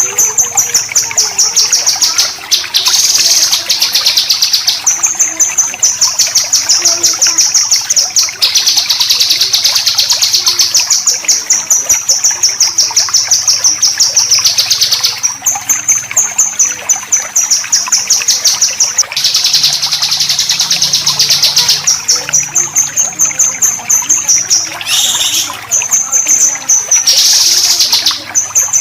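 Songbird giving besetan: long trains of rapid, harsh, high-pitched repeated notes, in phrases of a few seconds separated by short breaks.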